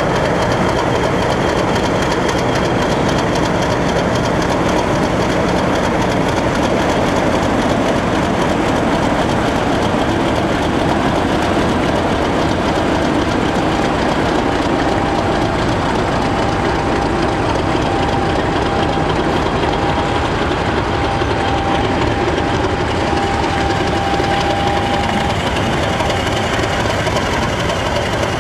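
British Rail Class 50 diesel-electric locomotive's English Electric 16-cylinder engine running steadily as the locomotive moves slowly past hauling goods wagons, with the rumble of the train rolling on the track. A thin steady whine joins in for about ten seconds in the middle.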